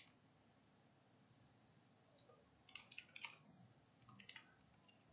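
Faint computer keyboard typing: scattered key clicks that start about two seconds in, after a near-silent stretch.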